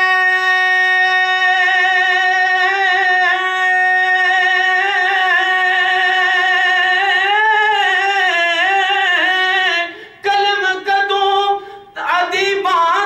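A man singing a naat unaccompanied into a microphone, holding one long high note with wavering, ornamented turns. The note breaks off about ten seconds in, and after a short broken pause the voice comes back in strongly near the end.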